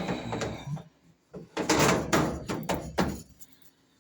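Knocking and scraping of dryer parts being handled and fitted during reassembly: a short clatter right at the start, then a longer run of scrapes and knocks from about a second and a half in to about three seconds.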